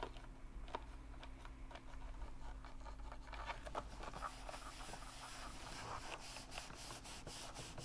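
Faint ticks and light scraping over a low steady hum as a compact steam iron heats up and is handled, the ticks coming thicker in the second half.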